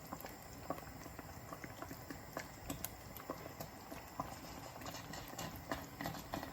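Onion paste frying in ghee in a pan on high gas, popping and spitting with irregular small crackles and ticks.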